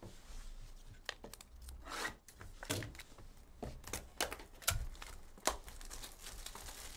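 Plastic shrink wrap being torn and peeled off a trading-card hobby box, crinkling with irregular sharp crackles.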